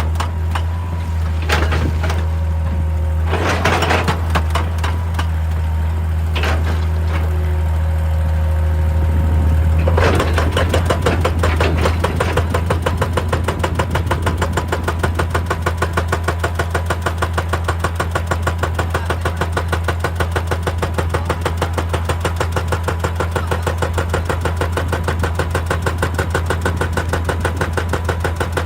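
Excavator at work: its diesel engine running steadily with a few sharp knocks, then from about ten seconds in a hydraulic breaker hammering rock in a rapid, even rhythm.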